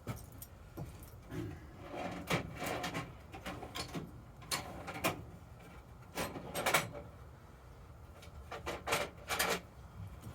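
Clunks and scraping of a motorcycle battery being handled and shifted in its tray, in several short bouts of a second or less.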